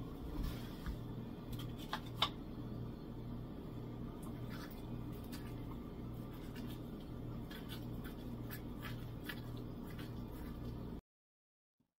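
A metal spoon scraping pulp and membranes out of juiced orange halves down to the white pith, with soft scrapes and a few sharp clicks of the spoon against the rind and bowl, over a low steady hum. The sound cuts off abruptly near the end.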